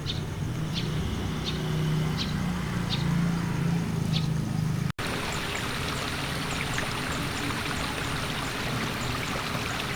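Water rushing steadily, like rainwater running in a drain or channel, filling the second half after an abrupt cut. Before the cut, a low steady hum with faint short chirps repeating about every two-thirds of a second.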